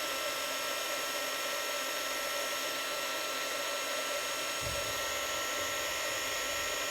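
Craft heat tool (embossing heat gun) running steadily, a fan hiss with a steady whine, as it heats the piece to melt embossing powder. A low rumble joins about two-thirds of the way in.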